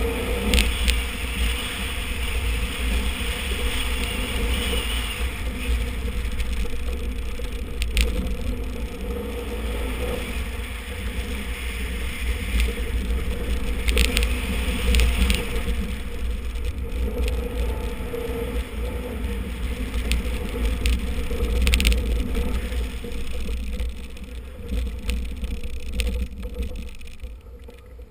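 Rally car driven hard on a dirt course: the engine running and changing pitch under a heavy low rumble of road and wind noise, with occasional sharp knocks from the loose surface.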